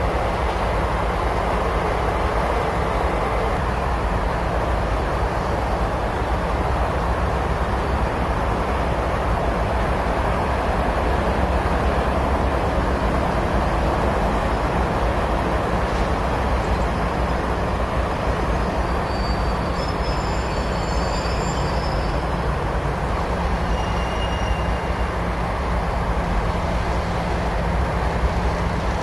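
Diesel trains running on the track: a steady rumble of engines and wheels throughout, with a few short high squeals about two-thirds of the way through.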